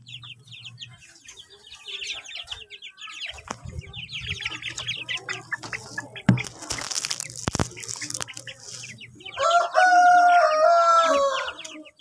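Chicks peeping rapidly in high, fast chirps, with a brief rustling burst about halfway through. Near the end a rooster crows once, loudly, for about two seconds.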